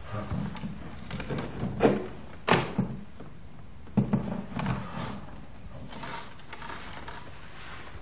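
Framed pictures knocking and thumping against a wall as they are lifted and set back, a series of knocks with the sharpest about two seconds in, half a second later, and again about four seconds in.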